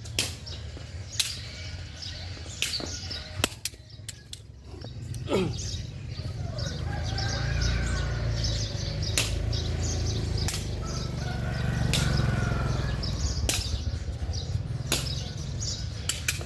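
Scattered sharp slaps or flaps, several in quick succession at times, over a low rumble that swells from about six seconds in; a short falling call or squeal comes a little past five seconds.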